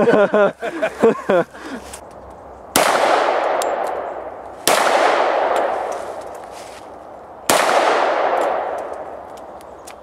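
Three shots from a Beretta semi-automatic pistol, about two to three seconds apart, each followed by a long fading echo.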